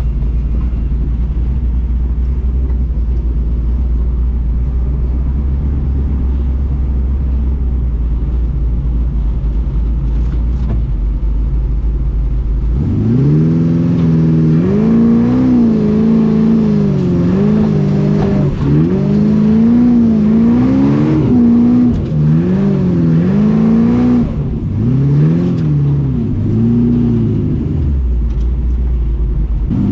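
FJ40 buggy's engine heard from inside the vehicle, running steadily at a low drone, then from about halfway through repeatedly revving up and easing off, its note rising and falling, before settling again near the end.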